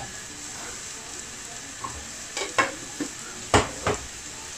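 Onion and tomato masala frying gently in an aluminium pan, a steady soft sizzle, with a metal spoon clinking against the pan about six times in the second half.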